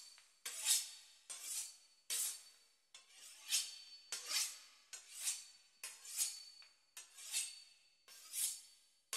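Knife sawing back and forth through the crisp puff-pastry crust of a beef Wellington, a regular series of scraping strokes about one a second.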